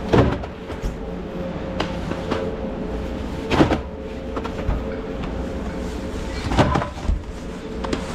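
Hand truck loaded with cases of soda rolling and rattling, with a few sharp metal clanks and knocks, over a steady hum.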